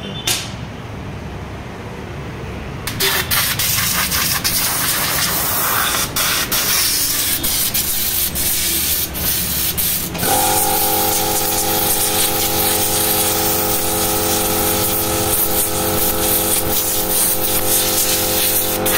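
A compressed-air blow gun blasts air through a car's panel engine air filter to clean out dust. The loud hiss starts about three seconds in and surges and dips as the trigger is worked. About ten seconds in, a steady machine hum joins it.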